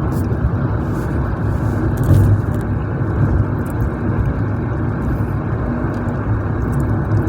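Steady road and engine noise of a moving car, a constant low rumble with no horn or other distinct event.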